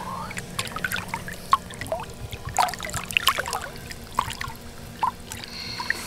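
Water splashing and trickling in small irregular spurts and drips as a large carp, foul-hooked in the back, thrashes at the surface, over a faint steady low hum.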